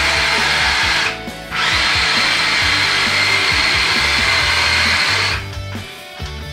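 Small electric motor of an RC Hummer model running flat out with a steady high whine. It cuts out for a moment about a second in, comes back, and stops near the end, leaving background music.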